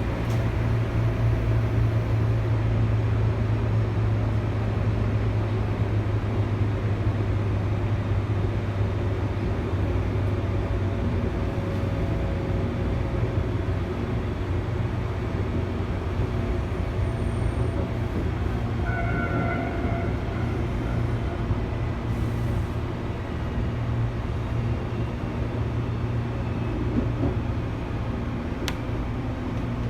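Tobu 8000 series electric train set 8561F running, a steady rumble of the car on the rails with a strong low hum. It eases slightly after the first third, and a few faint short tones come in about two-thirds through.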